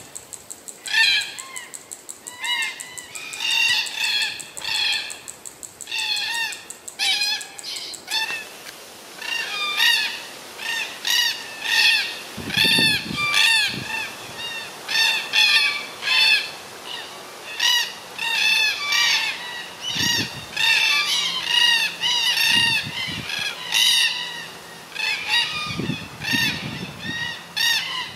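A flock of birds calling: many short rising-and-falling calls, repeated several times a second and overlapping.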